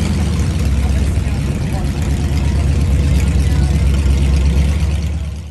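Hot rod engine idling with a steady, deep rumble, cutting off abruptly near the end.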